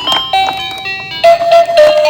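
Toy emergency vehicle's electronic sound unit playing bright beeping tones that step from pitch to pitch, first a short rising run, then from about a second in two lower tones alternating like a siren. Sharp plastic clicks and clatters sound throughout.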